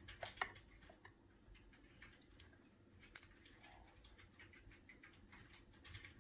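Faint light clicks and taps of small electronic parts and tools being handled while a small board is refitted to a tablet's replacement screen; the two sharpest clicks come just after the start and about three seconds in.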